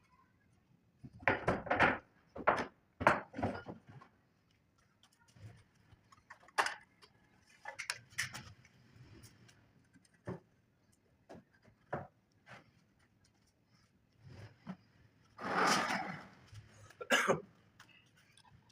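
Irregular knocks and clatter of wooden pieces being handled and tapped in a workshop. A quick run of knocks comes in the first few seconds, and a longer, rougher noise comes near the end.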